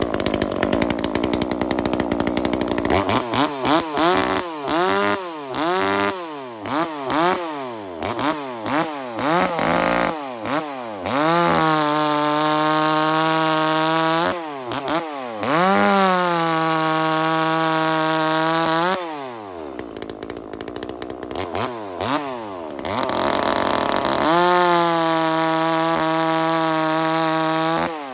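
A 420ES chainsaw, a 40 cc two-stroke clone of the Echo CS400 with a muffler mod and advanced ignition timing, is revved in a quick series of throttle blips. It is then held wide open three times for a few seconds each, as in making cuts, and drops back toward idle between the second and third runs.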